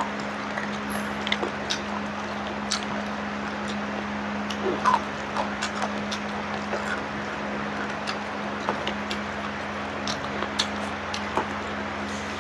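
Eating noises: scattered small clicks and smacks at irregular intervals over a steady low hum.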